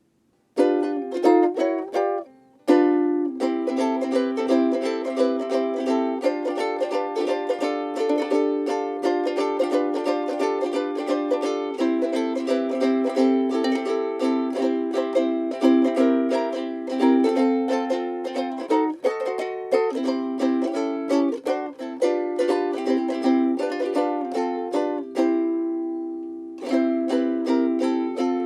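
A tkitki Style-0S17 UPT soprano ukulele with a solid African mahogany body, being played. It comes in about half a second in, breaks off briefly about two seconds in and again a little before the end, and goes on playing after each break.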